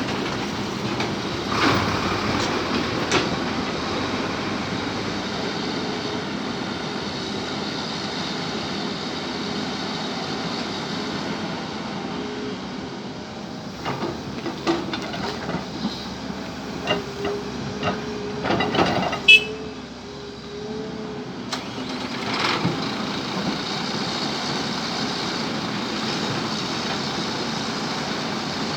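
Excavator engine running steadily while it works soil. Through the middle stretch come a series of sharp metallic knocks and clanks, the loudest a little past halfway, along with a brief steady whine.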